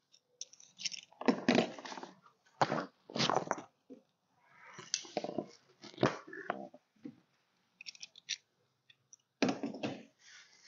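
Bubble-wrap packaging being cut open and pulled back by hand, crinkling and rustling in irregular bursts.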